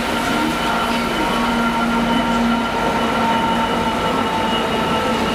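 Class 66 diesel locomotive (EMD two-stroke V12) hauling a steel-coil freight train past at close range: a steady, loud rumble of engine and wheels on the rails, with a few thin steady whining tones over it.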